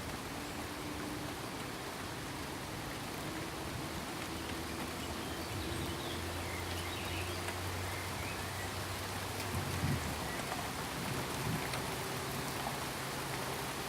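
Steady rain falling, an even hiss of drops. A low rumble sits underneath from about a third of the way in and swells briefly about two-thirds through.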